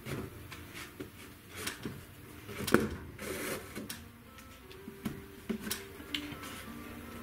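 Light knocks and clicks of hand work, with a brief rustling scrape about three seconds in.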